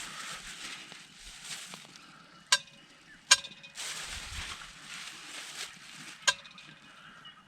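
Camp oven of roast pork sizzling, with three sharp clinks that ring briefly as metal knocks against the pot while vegetables are added: about two and a half seconds in, again a second later, and near the end.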